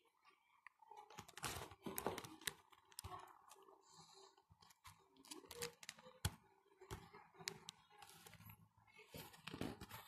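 Faint, irregular clicks, taps and paper rustling from hands handling a USB cable and a DJI Mavic battery-to-power-bank adapter as the USB plug is worked into the adapter's port, which is a tight fit.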